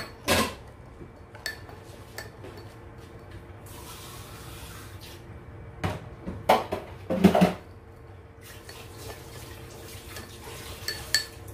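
Metal spoon clinking and scraping against a ceramic bowl as a small child stirs a mixture, in scattered taps with the loudest cluster about six to seven and a half seconds in. A faint steady hum runs underneath.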